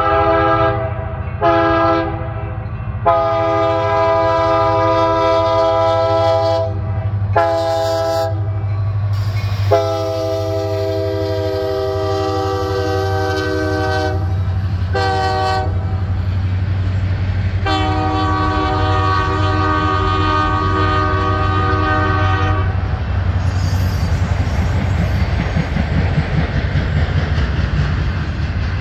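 Union Pacific freight locomotive's air horn blowing a run of long and short blasts over the low rumble of its diesel engine, the last blast ending a few seconds before the end. Then the autorack cars roll past, their wheels clacking over the rail joints.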